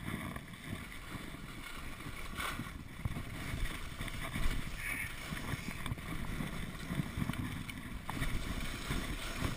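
Wind buffeting an action camera's microphone during a downhill ski run, a fluttering low rumble, over the steady hiss of skis sliding on packed snow.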